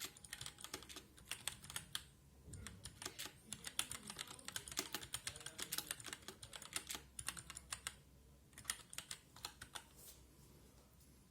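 Typing on a mechanical keyboard with unlubed Gateron Brown tactile switches in a 3D-printed gasket-mount case: quick runs of keystrokes with short pauses, thinning out near the end.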